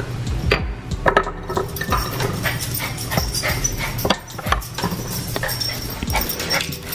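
A poodle whimpering and yipping excitedly as it waits for a treat, over repeated clinks and knocks of a ceramic treat jar's lid being lifted and set back.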